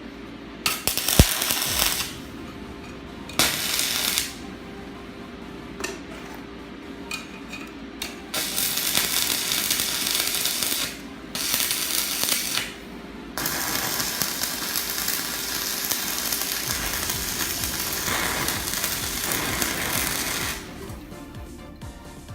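Stick-welding arc from a Btec MMA-315M inverter welder burning a 4 mm electrode, crackling and sizzling. It strikes twice in short bursts, then burns in a long run of about twelve seconds with two brief breaks, and cuts off near the end.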